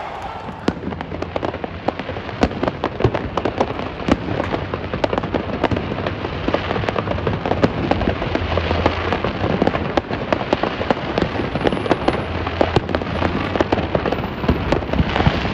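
Fireworks display going off: a dense, continuous run of crackling pops and sharper bangs from crackle-effect shells showering white sparks.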